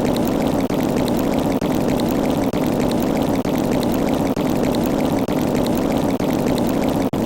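A steady rushing noise, played as a short sound effect looped over and over, with a brief break a little under once a second.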